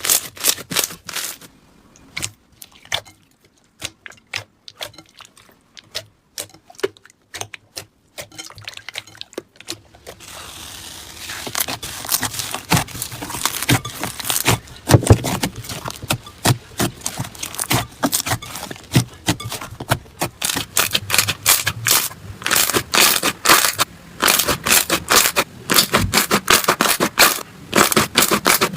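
Slime being squeezed and pressed by hand, giving scattered sharp crackles and pops at first, then from about ten seconds in a dense, continuous crackling.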